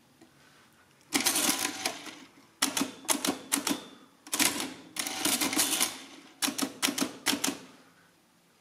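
Facit CA1-13 electromechanical calculator running through the rest of an automatic long division: its motor-driven mechanism clatters in several spells of rapid clicking with short pauses between them. It starts about a second in and stops shortly before the end.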